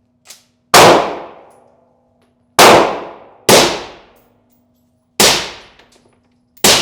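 Five gunshots in an indoor shooting range, spaced one to two seconds apart, each ringing out with a short echo.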